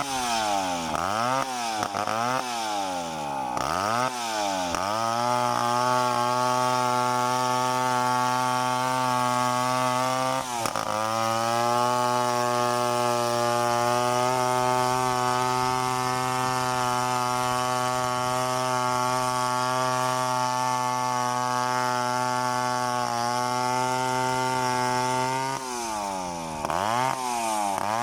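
Two-stroke chainsaw revved up and down several times in quick succession, then held at high speed for about twenty seconds as it cuts into a coconut palm trunk, with a brief dip about ten seconds in. It drops back near the end and revs up again.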